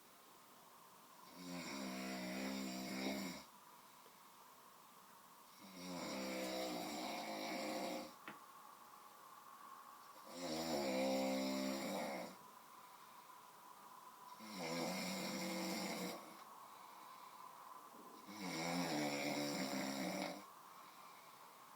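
A sleeping person snoring heavily in deep sleep: five long, loud snores, each about two seconds, coming about every four seconds.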